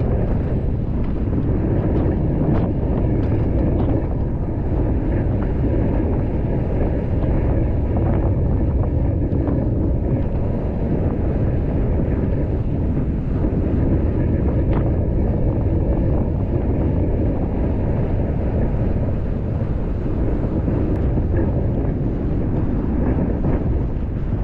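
Steady rumble of wind buffeting the microphone while riding a bicycle.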